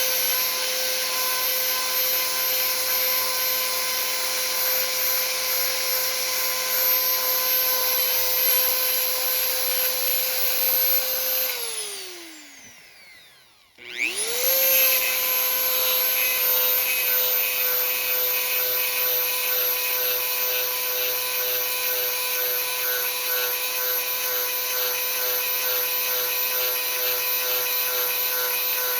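Dremel rotary tool fitted with a 7/32-inch chainsaw sharpening stone running at a steady high-pitched whine while sharpening chain cutters. About 12 seconds in it is switched off and winds down with falling pitch, then it is started again and runs steadily.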